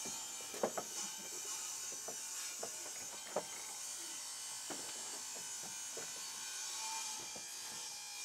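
Scattered light knocks and clunks of wood and tools being handled on a wooden deck during door installation work, over a steady hiss, with a few sharper knocks in the first few seconds.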